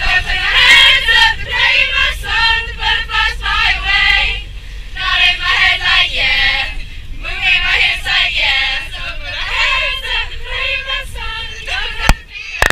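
A group of teenage girls singing together loudly inside a moving minibus, over the vehicle's low steady rumble, with a sharp knock near the end.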